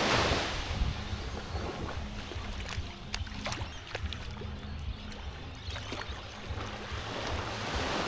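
Small waves lapping and washing up a sandy shore, with wind gusting on the microphone as a low rumble and a few faint clicks.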